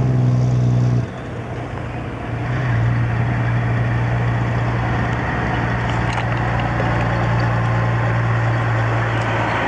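Diesel engine of a loaded Pacific cab-over logging truck pulling steadily as it approaches, with tyre and road noise. The engine note drops away about a second in, then comes back and holds for the rest of the time.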